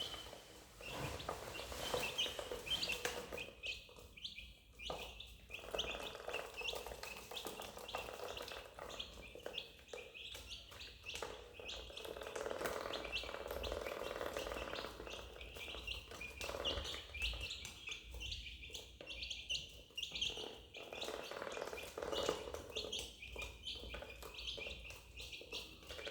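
Duckling peeping: many short, high, falling peeps, repeated over and over.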